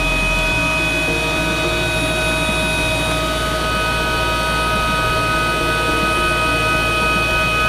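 Military helicopter's turbine engines running at a steady pitch: a high whine over a continuous low drone.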